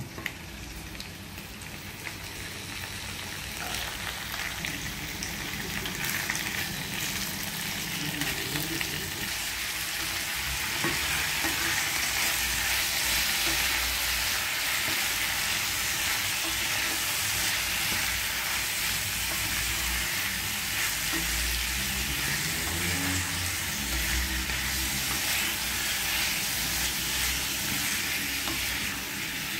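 Raw pork chunks dropped into a hot oiled pan of fried onions, with a sharp knock as they land, then sizzling that grows louder over the first ten seconds or so and holds steady. A wooden spatula stirs the meat, scraping and knocking against the pan.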